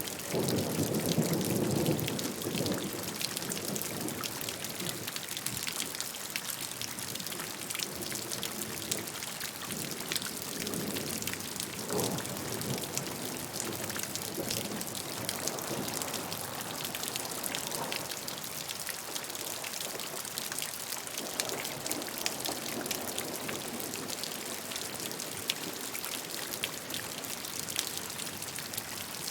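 Steady rain falling, with many close individual drops tapping on a surface. There is a low rumble in the first two seconds, and fainter ones come and go later.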